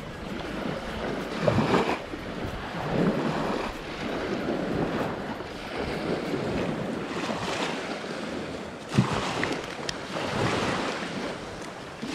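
Shallow saltwater sloshing and splashing, in uneven surges with a few sharper splashes, mixed with wind buffeting the microphone.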